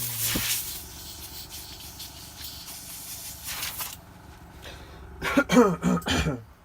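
Airbrush hissing for about four seconds as paint and air are blown through it to drain the colour out. Near the end comes a brief, loud vocal sound with changing pitch.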